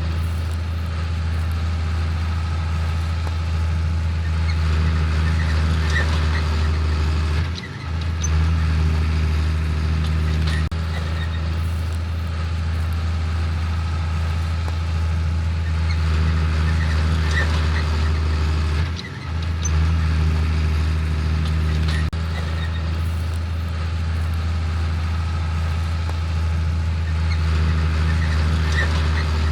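Heavy farm machinery running steadily, a deep engine rumble with brief dips about every eleven seconds.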